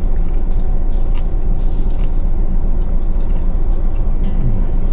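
Someone chewing a mouthful of grilled pork belly (liempo) over a steady low rumble, with a few faint clicks.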